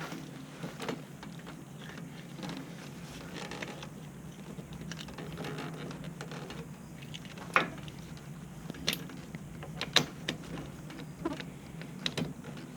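Hydraulic quick-connect couplers being worked by hand: sharp metallic clicks and knocks, several in the second half, over a steady low hum. The coupler is stubborn and won't snap in, which the owner puts down to pressure built up inside.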